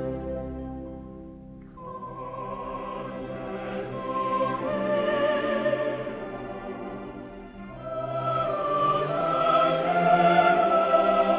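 Choir singing long notes with vibrato over orchestral accompaniment, in a musical-theatre style. A soft orchestral passage comes first, the voices enter about two seconds in, and the music grows louder in the second half.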